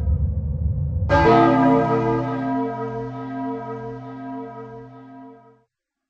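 A deep tower bell strikes once about a second in and rings out with many overtones, slowly fading, before cutting off suddenly near the end. Before the strike, a low rumble runs under the lingering ring of an earlier toll.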